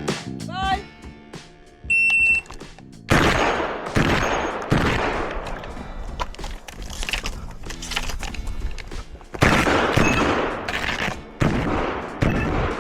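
Shot-timer beep, then a rapid string of shotgun shots, with music playing under them.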